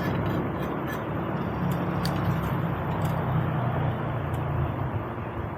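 Motorcycle engine running steadily while riding at low speed, with wind and road noise.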